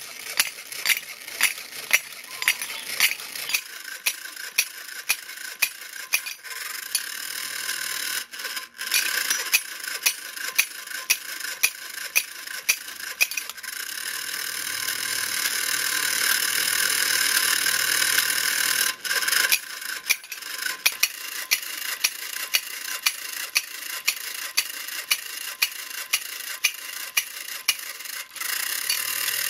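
Vintage battery-operated clapping monkey toy running: its small electric motor and gear train whir steadily, while the clapping arms and cymbals clack sharply about twice a second.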